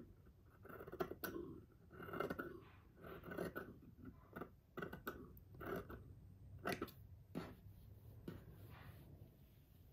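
Dressmaking shears trimming a seam allowance of sheer bra tulle: a series of quiet snips about once a second, some with a sharp click of the blades closing, easing off near the end.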